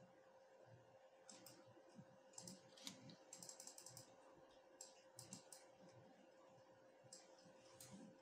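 Faint clicking of a computer keyboard and mouse in short bursts of rapid ticks, over a faint steady hum.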